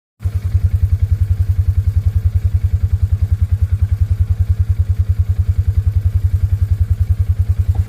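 An engine running steadily, a low, even throb of about ten pulses a second.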